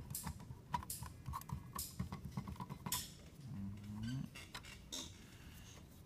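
Hand screwdriver driving small oval-head screws through a cover plate into a metal electrical box: an irregular run of small metallic clicks and ticks.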